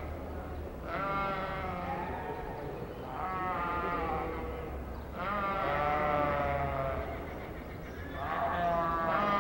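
Katahdin sheep bleating: four long, wavering bleats about two seconds apart.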